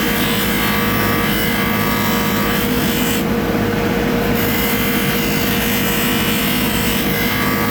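Electric polishing machine running steadily with a constant motor hum, and a scratchy rubbing hiss of metal being worked against it. The hiss eases for about a second partway through.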